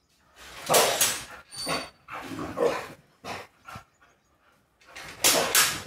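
A Rottweiler puppy barks and vocalizes at a gate in a string of short outbursts, demanding to be let outside. There is a pause of about a second partway through, then a louder pair of barks near the end.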